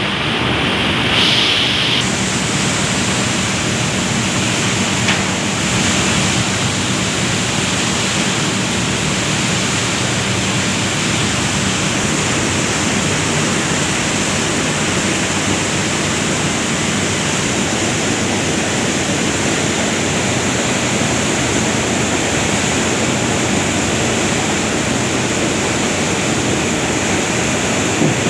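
Palm oil mill machinery, the digester and screw press, running with a loud, steady, dense noise and a faint low hum underneath; a brighter hiss joins about two seconds in.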